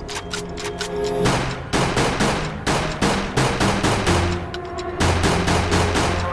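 Upbeat electronic intro music with a fast, hard-hitting drum beat of about four hits a second over a bass line, fading up over the first second.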